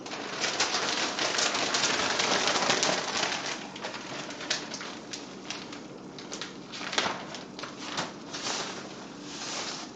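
Melted butter sizzling and spitting at frying heat in two frying pans: a dense crackling sizzle for the first three or four seconds, thinning to scattered pops, with a sharper pop about seven and again about eight seconds in.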